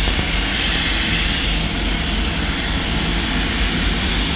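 Jet engine noise from a Boeing 737-800, heard across a road as a steady, unchanging noise with a low hum underneath.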